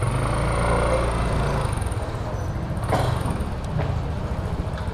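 Motor scooter engine running steadily at low speed, with one short sharp knock about three seconds in.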